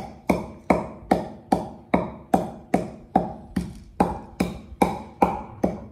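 Wooden pestle pounding steadily in a wooden mortar, a hollow wooden knock about every 0.4 seconds.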